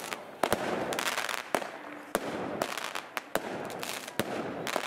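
A fireworks display going off: a rapid, irregular string of sharp bangs and cracks, about a dozen, over a steady hiss of burning pyrotechnics.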